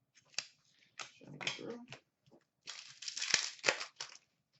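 Trading cards being handled: irregular rustling and crinkling in short spells, with a few sharp snaps, the busiest stretch about three seconds in.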